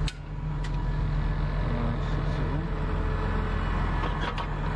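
Tractor engine idling steadily, with a sharp click right at the start and a lighter one just under a second later.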